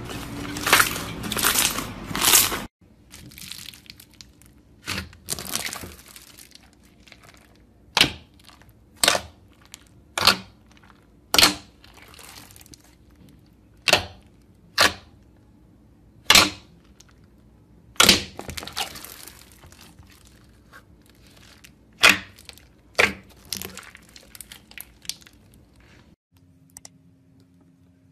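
Slime being pressed and worked, giving sharp crackling pops. A dense crackle cuts off abruptly early on, followed by single loud pops about one to two seconds apart.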